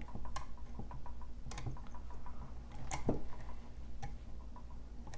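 Irregular small metallic clicks and ticks of a lock pick and tension wrench working the spring-loaded pins inside a lock as it is being picked, a few sharp clicks spread over several seconds.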